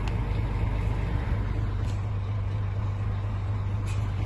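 Scania truck's diesel engine running at low revs, heard from inside the cab as a steady low rumble while the rig manoeuvres slowly. A faint short click sounds about every two seconds.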